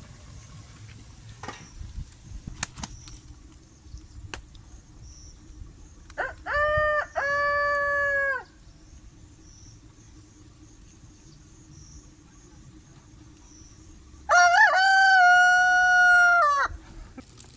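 Domestic rooster crowing twice, each crow about two seconds long, the second louder.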